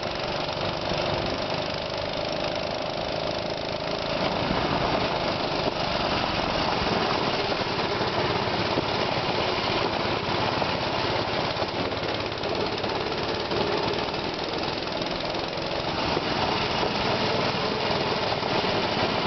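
A 97 cc, 2.8 hp mini-bike engine running under way. It gets louder and fuller about four seconds in as the bike picks up speed, and rises again near the end.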